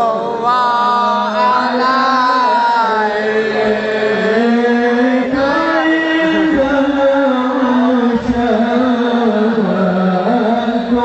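Background music: melismatic chanting of an Islamic salawat, a voice gliding and ornamenting between held notes.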